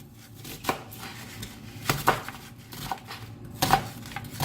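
Knife chopping a red onion on a cutting surface: a handful of separate chops, a second or two apart.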